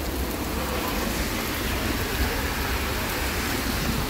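Heavy rain pouring down onto a street and sidewalk: a steady hiss of rain with a low rumble underneath.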